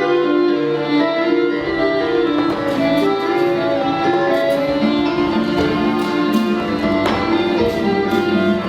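Instrumental music of long held, pitched notes; a lower bass part comes in about a second and a half in.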